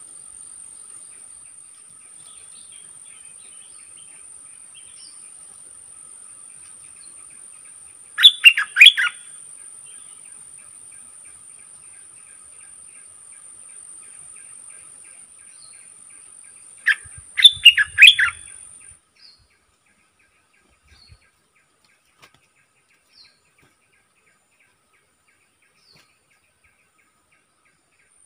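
Bulbul calling in two short, loud bursts of rapid chirping notes, about eight seconds in and again near seventeen seconds, the second with a few low thuds. A steady high insect buzz runs underneath and cuts off just after the second burst.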